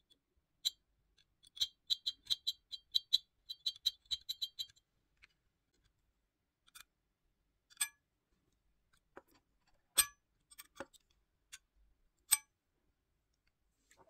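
Small screwdriver tip ticking and scraping against the metal battery contact clip and plastic housing of a keyless car remote: a quick run of light clicks, about five a second, then a few separate louder clicks.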